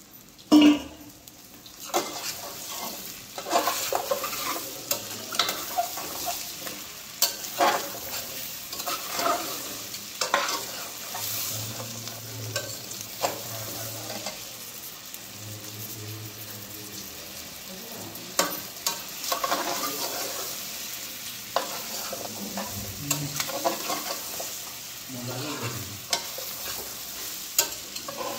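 Boroi (jujube plums) frying in hot mustard oil with spices, sizzling steadily while a spatula stirs them round the pan with frequent scrapes and clicks against the metal. There is a loud knock just after the start.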